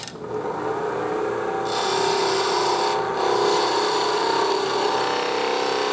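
Spindle gouge cutting a bead into a spindle spinning on a wood lathe: a steady scraping hiss of the cut over a steady tone, growing brighter about two seconds in, easing for a moment around three seconds and dropping back near the end.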